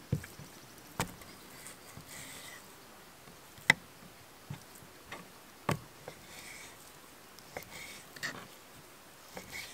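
Kitchen knife cutting raw beef on a wooden cutting board: irregular sharp knocks as the blade goes through the meat and hits the board, about nine of them, one much louder a little past the middle, with faint scraping between.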